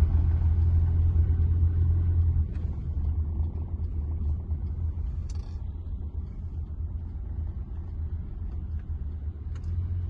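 Low, steady rumble of a car driving, heard from inside the cabin; it drops noticeably in level about two and a half seconds in.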